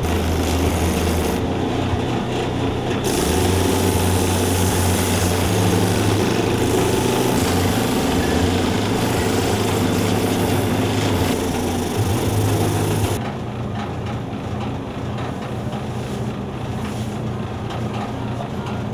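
Shoe repair finishing machine running, its motor humming steadily while a shoe is pressed against the spinning sanding and buffing wheels with a rough grinding noise. About thirteen seconds in the grinding stops and the quieter motor hum carries on.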